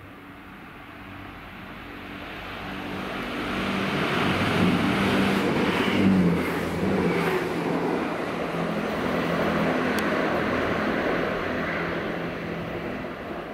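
Chiltern Railways Class 165 diesel multiple unit running through without stopping: diesel engine hum and wheel-on-rail noise build as it approaches, are loudest as it passes, then fade as it moves away. The engine note drops in pitch as it goes by, and there is a single sharp click from the wheels or rails near the end.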